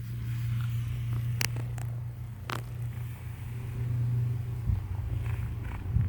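Steady low hum of a running car, with a few sharp clicks over it, the clearest about a second and a half and two and a half seconds in.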